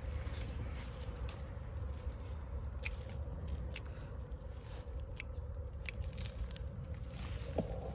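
Scattered sharp little snaps and crackles of hands digging in garden soil and pulling sweet potato roots and vines, over a low steady rumble.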